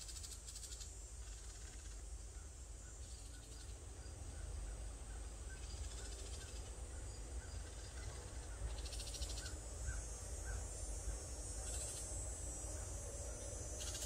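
A small bird giving a long series of short, evenly spaced chirps, which the hiker takes for a bird that may be disturbed near its nest. Cicadas buzz behind it in high waves that swell and fade every few seconds.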